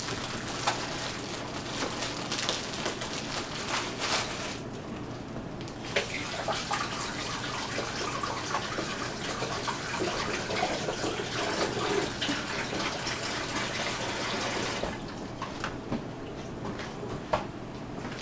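Plastic bag of English muffins crinkling and crackling as it is opened and handled, with a brief pause about a quarter of the way in and quieter rustling over the last few seconds.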